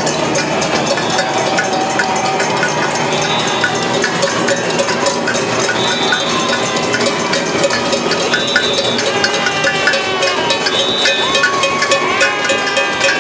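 Crowd noise-making with metal saucepans beaten with spoons, a dense, continuous clanging, mixed with repeated short whistle blasts.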